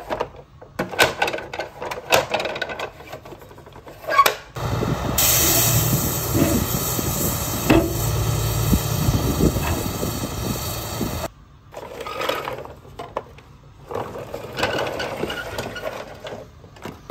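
Plastic clicks and knocks as a toy dump truck's bed is tipped by hand, then a real dump truck tipping its load of rubble: a steady low engine rumble with hiss for about seven seconds, the loudest part, before it cuts off and more light handling knocks follow.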